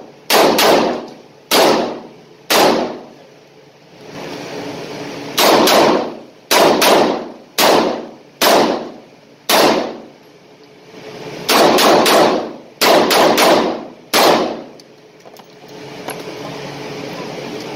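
Revolver shots fired in quick strings, each with an echoing tail: about four shots in the first three seconds, then two runs of about six shots each, the last ending about fourteen seconds in.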